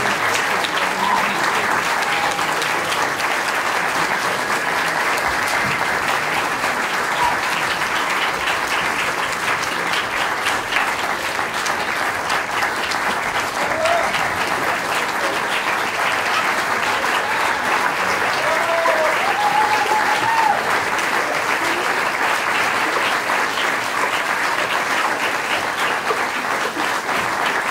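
Audience applauding steadily throughout, with a few brief calls from the crowd.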